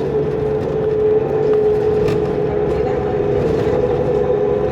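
A 2005 New Flyer D40LF transit bus under way with its Cummins ISL diesel, heard from inside the bus: engine rumble under a steady whine that the title puts down to the turbo. The whine edges slightly up in pitch near the end.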